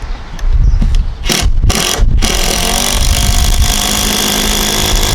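Impact drill driving a screw: three short bursts, then a continuous run from about two seconds in, with steady motor tones over a dense hammering rattle. Wind buffets the microphone throughout, a heavy low rumble.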